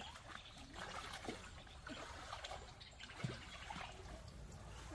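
Faint trickling and dribbling of water, with a few small knocks.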